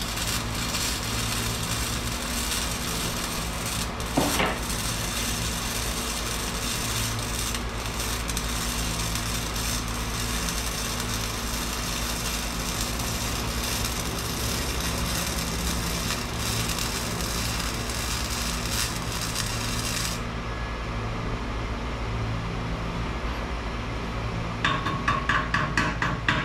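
Gas-shielded MIG welder arc crackling steadily as a bead is laid on a cracked steel exhaust pipe, over a low machine hum; the arc stops about twenty seconds in. Near the end comes a quick run of sharp metal strokes on the pipe.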